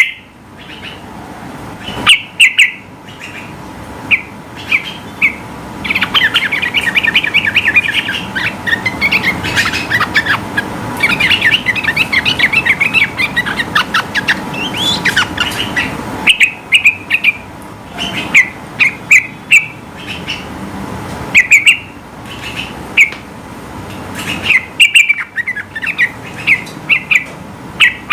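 Yellow-vented bulbul (trucukan) singing loudly in short bubbling phrases repeated every second or so. In the middle comes a long run of rapid chattering notes about ten seconds long, and then the short phrases return.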